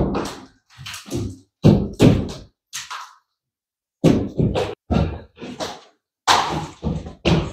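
Old ceiling boards being pried and torn off wooden ceiling joists by hand: a run of sharp knocks and thuds, two or three a second, broken by a short silent gap about halfway.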